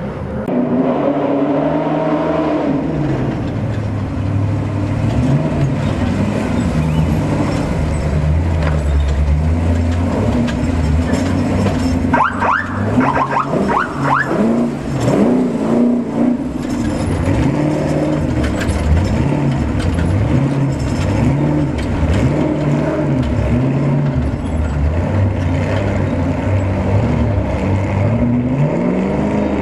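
Trophy Truck's V8 engine revving up and down over and over as the truck crawls over boulders. About twelve seconds in there is a short burst of shrill high sounds.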